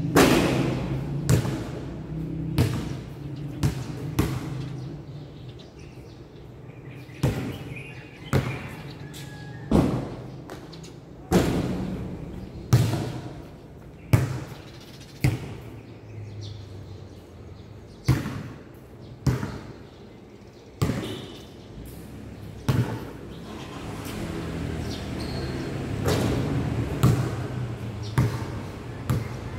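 Basketball being dribbled on a concrete court under a metal roof: sharp bounces at uneven spacing, roughly one a second, each with a short echo.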